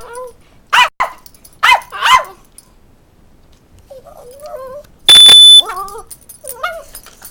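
A puppy barks sharply four times, then whines in wavering cries. Just after five seconds a smoke alarm gives one loud, steady, high beep of about half a second, and the puppy whines again after it.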